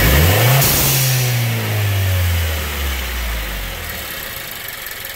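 A Nissan Juke Nismo RS's turbocharged 1.6-litre four is revved once. As the throttle shuts about half a second in, the GFB blow-off valve vents to atmosphere in a loud hiss that fades over a second or two. The revs then fall slowly back toward idle, and the valve closes just before idle.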